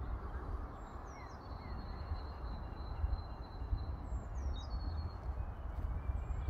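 Wind rumbling on the microphone, with birds singing thin, falling whistles and a longer high trill over it.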